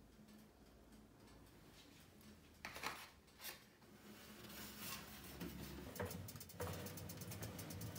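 A few faint clinks and knocks as stoneware ramekins in a glass pie dish are handled, then a steady low hum from a running oven near the end.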